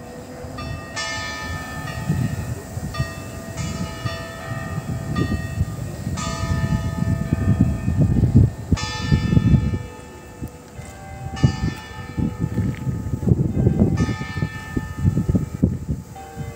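Tower-clock bells striking, one stroke every second or two, each ringing on after it is struck. Bells of several different pitches take turns, over a steady low rumble.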